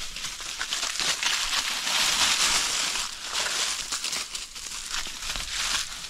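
Footsteps crunching and crackling through a thick layer of dry fallen leaves, heaviest about two seconds in.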